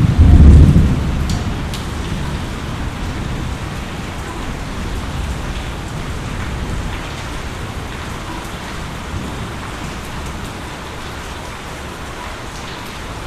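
Steady rain falling, with a low rumble of thunder at the start that dies away within the first couple of seconds.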